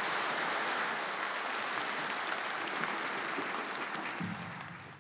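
Congregation applauding a praise song that has just ended, the clapping dying away near the end.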